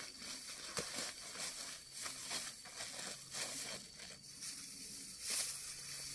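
Lemongrass stalks and dry grass rustling and crackling as they are handled and pulled, with a string of short, irregular tearing and crinkling noises.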